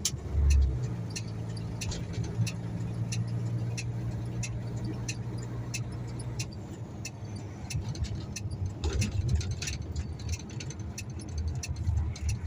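Turn-signal indicator ticking about twice a second inside the cab of a Mercedes-Benz ready-mix concrete truck, over the steady low drone of the truck's engine.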